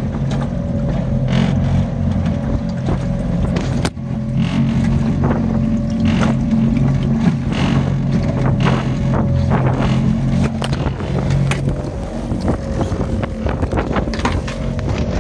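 Boat engine running steadily at a constant pitch, with frequent short knocks and wind buffets over it; the engine note fades out about twelve seconds in.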